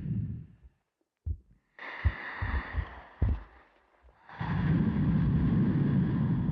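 A performer's breathing, picked up close and amplified: a breath dies away, then a few soft low thumps sound under a lighter breath, and a long, loud breath starts about four seconds in.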